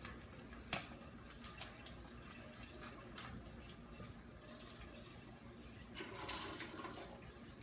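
Faint steady trickle and bubbling of aquarium water from the tank's filter and air bubbler, broken by a few sharp clicks and a short rustle near the end as a plastic fish bag is handled.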